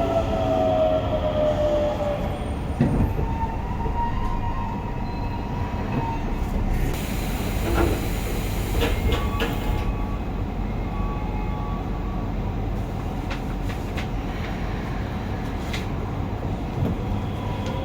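Running sound inside a Hokuso 7300-series commuter train car. The whine of its GTO-VVVF inverter falls in pitch and fades in the first second or so. Then comes steady wheel-on-rail rumble with occasional clicks, and a hissy stretch about halfway through.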